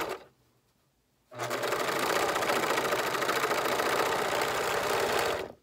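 Sewing machine stitching the shoulder seam of a garment: a run cuts off just after the start, then after about a second of quiet the machine runs steadily again for about four seconds and stops.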